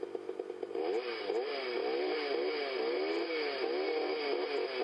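Small two-stroke chainsaw engine firing slowly for the first moment, then revved up and down over and over, about twice a second.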